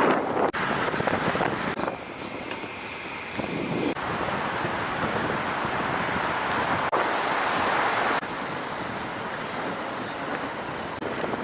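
Strong wind rushing over the microphone of a camera on a moving road bike. The noise jumps abruptly louder and quieter several times as the gusts and airflow change.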